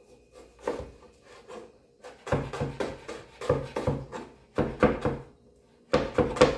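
Kitchen knife dicing onion on a plastic cutting board: a few single taps at first, then runs of rapid chopping strokes with short pauses between them.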